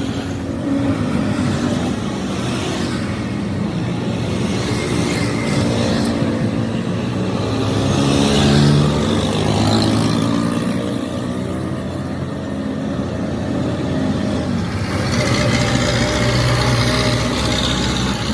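A motor vehicle engine running, growing louder around the middle and again near the end.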